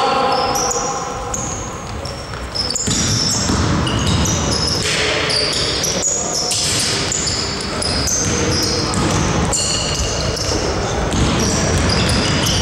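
Basketball game in a gym hall: many short, high sneaker squeaks on the court floor, the ball bouncing, and players' shouts echoing in the hall.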